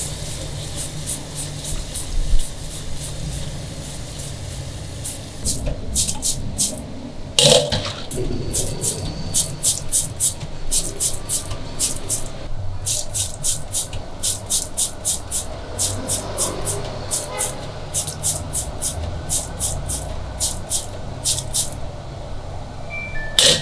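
A scrubbing sponge rasping over cockle shells in a steel bowl of water, a few strokes a second, with tap water running into the bowl. The running water stops about halfway, leaving the scrubbing strokes and small splashes; a louder knock comes about a third of the way in.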